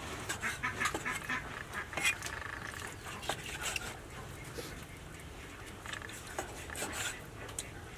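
Meat cleaver chopping raw pork on a wooden chopping block: an uneven run of knocks, a couple to the second.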